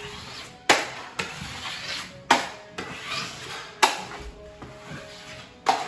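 Steel taping knife striking and scraping the edge of a metal mud pan: four sharp clacks a second and a half to two seconds apart. Between the clacks comes the softer scrape of joint compound being worked with the knife.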